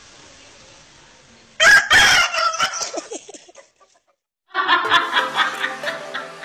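A rooster crows once, loud and close, about a second and a half in, the call trailing off over about two seconds. After a brief gap, music starts near the end.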